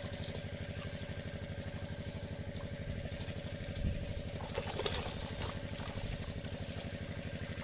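A small engine running steadily at a constant speed, its beat even throughout, with a couple of brief water splashes about four and five seconds in as the net is hauled through the shallow water.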